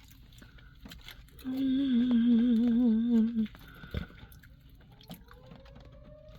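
A woman humming one held note with a wide vibrato for about two seconds. A faint tone slowly rising in pitch starts near the end.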